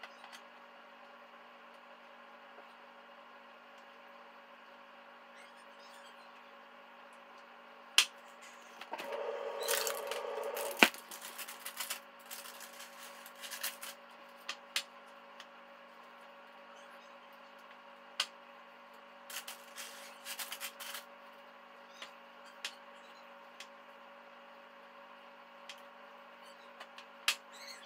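Kitchen counter work while baking: now and then a sharp click or knock of utensils or containers being set down, a couple of seconds of rustling and scraping about a third of the way in, and a few small clatters later, over a steady background hum.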